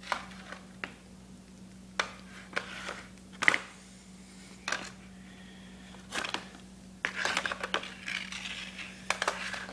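Handling noise: a series of sharp clicks and knocks as objects are picked up and moved, turning into denser rubbing and rustling for the last few seconds, over a steady low hum.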